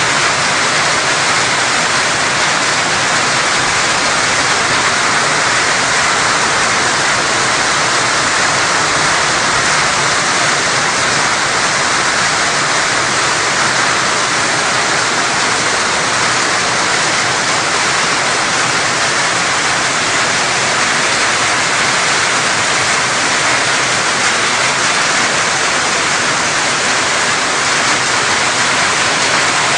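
Torrential storm downpour falling on a flooded paved yard: a loud, dense, unbroken hiss.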